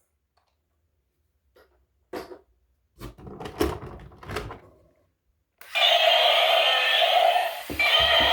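A few short knocks and scraping handling noises, spread over about three seconds, then background music starts again about halfway through.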